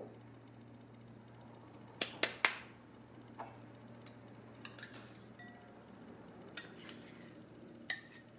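A metal balloon whisk clinking against a small glass dish and a glass mixing bowl while softened butter is scraped out: three sharp clinks about two seconds in, then a few lighter taps spread through the rest.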